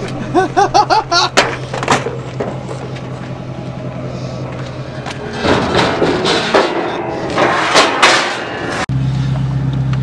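Voices over a steady engine hum, with louder rough swells of noise later on; near the end it changes abruptly to the steady low drone of a vehicle under way.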